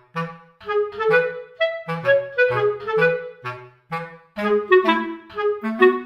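Background music: a light, bouncy clarinet tune of short detached notes over a bass line, in a steady rhythm.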